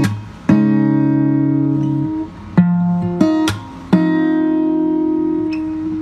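Background music: acoustic guitar chords strummed and left to ring, about five strums, each dying away slowly.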